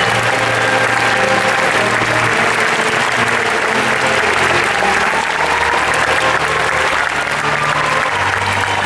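Theatre audience applauding steadily, with music of sustained low notes playing underneath.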